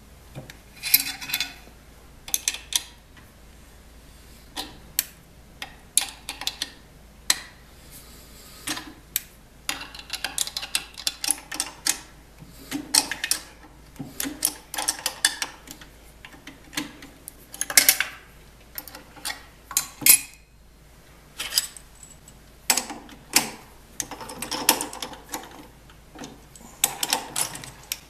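Irregular metallic clicks, clinks and short scrapes of hand tools as a brass threaded insert is wrenched by hand into a wooden knob held in a jig on the drill press table.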